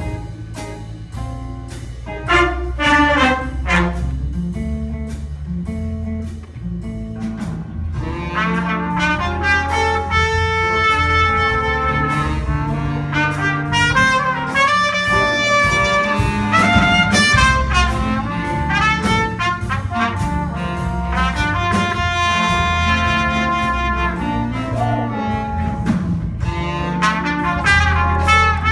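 Jazz band playing live, with a brass section of trumpets and trombones. The opening is sparse, and the horns come in about eight seconds in; from there the full band plays held chords over a steady bass line.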